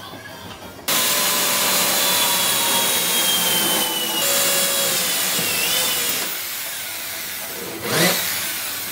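Electric drill boring through a laminate-faced wooden board, starting about a second in with a steady whining motor and the bit grinding into the wood. Near the end the drill spins up again with a short rising whine.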